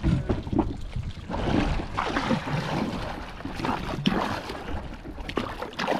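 Water lapping and sloshing against the hull of a small drifting dinghy, with a few short knocks.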